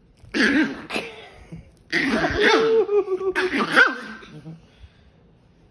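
Dogs vocalizing in rough play: short, rough growling bursts, then a longer pitched grumbling, moaning growl with one held note about halfway through.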